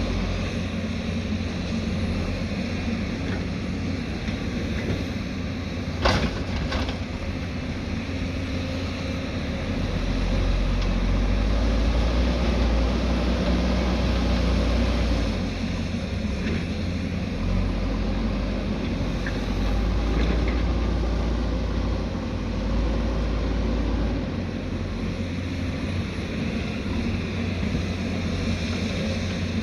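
Diesel engine of a heavy earthmoving machine running steadily, swelling louder twice, around ten and twenty seconds in. A sharp knock stands out about six seconds in.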